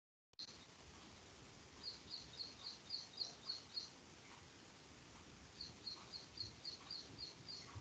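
A bird chirping over faint background hiss: two runs of rapid high chirps, about four a second, each lasting about two seconds. The audio drops out completely for a moment at the very start, a break in the online call's feed.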